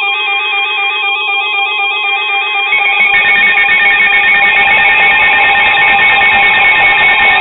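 Several weather alert radios sounding their alarms together, with tones that step rapidly back and forth in pitch; a harsher, fuller layer joins about three seconds in. They are triggered by a NOAA Weather Radio alert for a severe thunderstorm warning.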